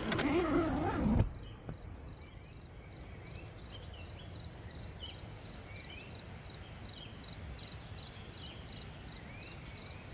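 Early-morning forest ambience: a high, even chirp repeating about twice a second, with scattered short rising bird chirps over a steady low hiss. A loud sound effect lasting about a second comes first and cuts off suddenly.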